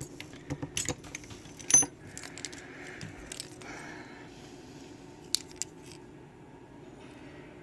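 Small metal tools and lock parts clinking and rattling as they are handled: a quick run of clicks in the first two seconds, a soft rubbing sound after it, then two sharp clicks about five and a half seconds in.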